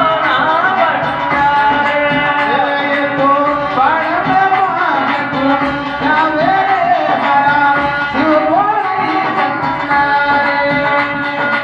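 Live devotional folk song over a PA: a man sings a melody that glides up and down, over steady held accompaniment tones and regular drum beats.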